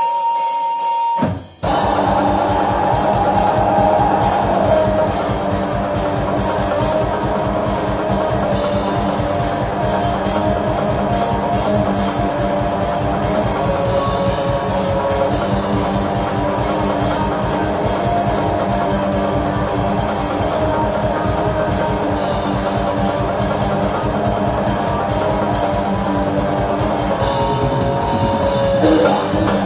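Live metal band playing: distorted electric guitars over a drum kit, with dense, rapid drumming. The full band comes back in after a brief drop in sound about a second and a half in.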